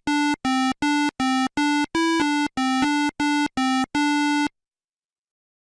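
Short electronic synthesizer tune of about a dozen clipped notes, mostly on one pitch with a few higher ones near the middle, stopping about four and a half seconds in.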